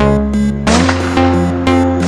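Electronic background music with a steady beat and synth chords; the arrangement shifts to a fuller, brighter sound less than a second in.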